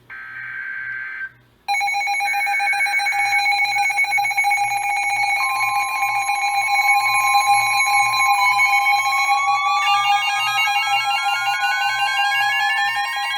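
Emergency Alert System alert tones: a short buzzing burst, then a loud steady alert tone sounding several pitches at once. From about eight seconds in, one added tone glides steadily upward.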